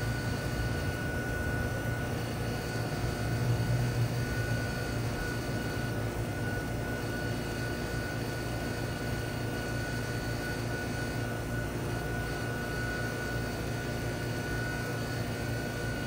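Trane XB13 2.5-ton heat pump outdoor unit running steadily in cooling mode. Its Climatuff reciprocating compressor and condenser fan make an even hum, with a faint steady high tone above it.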